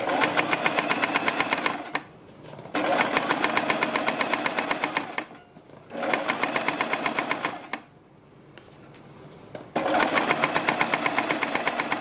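Electric domestic sewing machine stitching fabric in four runs of rapid, even stitches, each lasting about two seconds, with short pauses between them.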